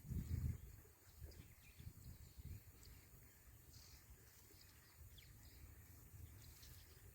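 Quiet outdoor ambience with a few faint, brief bird chirps over a low rumble. A louder low rumbling sound comes in the first half second.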